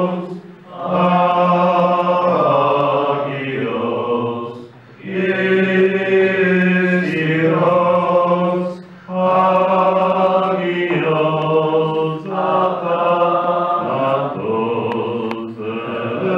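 Byzantine-rite liturgical chant in Church Slavonic, sung by several voices in long held phrases with short breaks between them.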